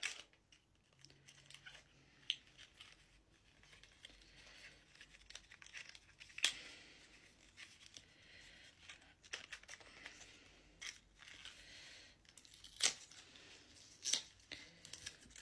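Faint handling sounds from a small cosmetic tube of liquid eyeshadow being turned in the hands and opened: scattered light clicks and rustles, with a sharper click about halfway through and two more near the end.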